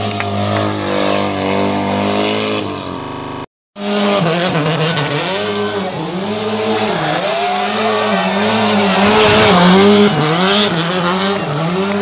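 Rally car engines revving hard as the cars slide around in tight circles, with tyres squealing. The first engine holds a steady high pitch; after a brief dropout about three and a half seconds in, an engine's pitch rises and falls again and again as it is blipped through repeated spins.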